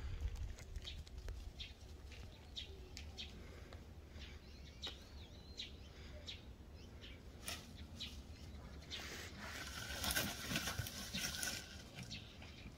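Two feral cats fighting in dry straw, with a harsh, noisy burst of scuffling and hissing about nine seconds in that lasts a couple of seconds. Short bird chirps come and go throughout.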